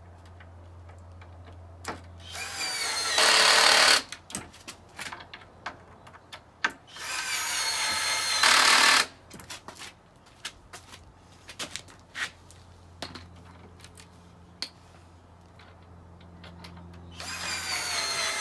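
Cordless drill driving screws into a wooden garden bench frame in three runs, each speeding up with a rising whine and lasting a second or two. The last run starts near the end. Light clicks and knocks of handling come between them.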